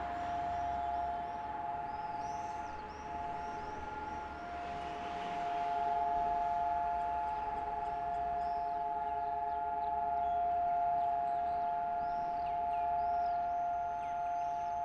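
Israeli civil-defence siren sounding a steady, unwavering tone: the two-minute memorial siren for fallen soldiers and victims of terrorism.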